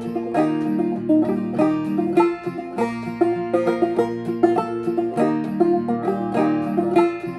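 Solo clawhammer banjo on a Pisgah Dobson Rambler open-back banjo, tuned f A# F A# D (Double C a whole step low with the first string raised): a steady stream of down-picked melody notes with a high drone note returning again and again.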